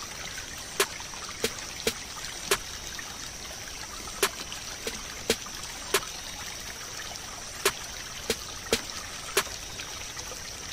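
Steady trickle of aquarium water, with about a dozen sharp clicks at irregular intervals of half a second to a second and a half.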